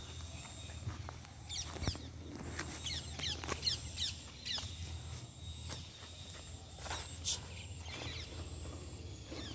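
Small birds chirping in quick descending chirps, thickest a couple of seconds in, over a steady low hum.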